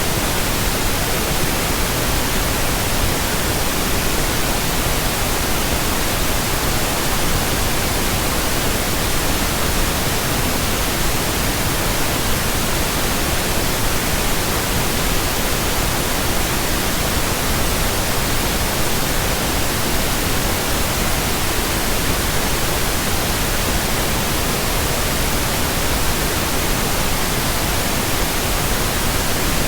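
Steady pink noise: an even, unchanging hiss across the whole range, with no breaks or events.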